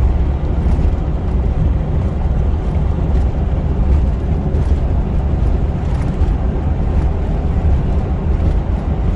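Steady, loud low rumble of road noise inside a moving vehicle, cutting off suddenly at the very end.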